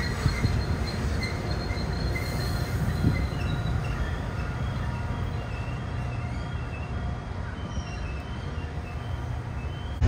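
Metra commuter train's bilevel passenger cars rolling past on the rails and receding, the steady rumble slowly easing.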